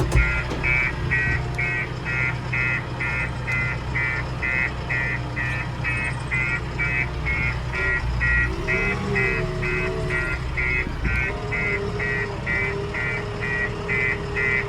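JCB 3DX backhoe loader's reversing alarm beeping steadily, about two and a half beeps a second, over its diesel engine running. A steadier whine joins about eight seconds in.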